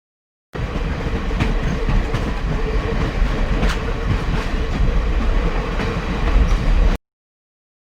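Train running along the track: a steady rumble with light clicks of the wheels over the rails. It starts about half a second in and cuts off suddenly about a second before the end.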